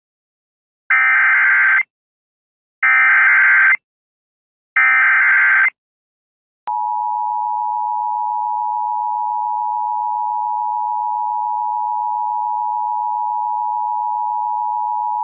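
Emergency Alert System SAME header: three bursts of data tones, each about a second long and about a second apart. About a second later the EAS two-tone attention signal (853 and 960 Hz) starts and holds steady.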